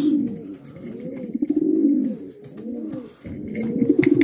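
Racing pigeons cooing in their loft: repeated low, rolling coos from several birds overlapping, easing off briefly in the middle and swelling again near the end.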